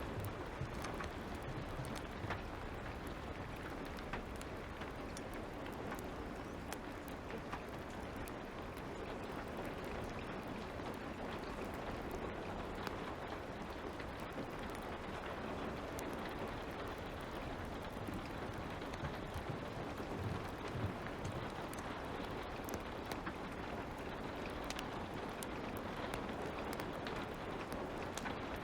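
Light rain falling steadily, with scattered sharp crackles from a fire.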